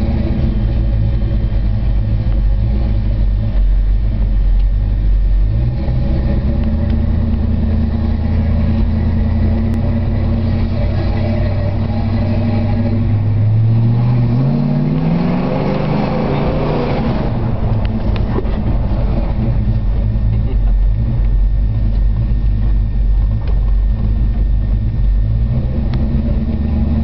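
1970 Ford Torino GT's 351 Cleveland four-barrel V8 heard from inside the cabin while driving: a steady low engine note at cruising revs. About halfway through the engine pulls harder and its note rises for a few seconds, then eases back to a steady cruise.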